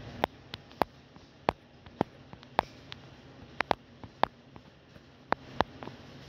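A dozen or so sharp, short clicks and taps at uneven intervals over a quiet background.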